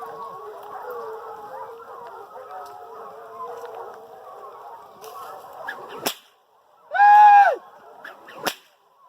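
A pack of foxhounds baying together in a dense, overlapping chorus, then a nearby hound gives one loud bay about seven seconds in that falls in pitch at its end. Two sharp cracks come just before and after that bay.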